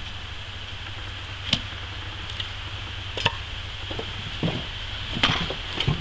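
Wooden beehive pallets built from pressure-treated 2x4s knocking against each other as they are handled and nested on a stack: a few separate sharp wooden knocks.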